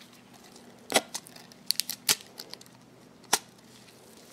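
Parts of a disassembled Casio fx-300MS calculator being handled: a scatter of sharp plastic clicks and taps, the loudest about a second in and another a little before the end.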